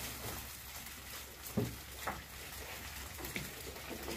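A heap of freshly landed small fish (sardines) in a boat's hold, many of them flapping against each other with a steady wet rustle as a scoop net is emptied onto them. A couple of knocks sound about a second and a half and two seconds in.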